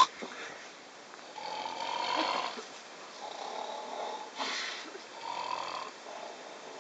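A sleeping person snoring: four snoring breaths one after another, the loudest about two seconds in, then quieter toward the end.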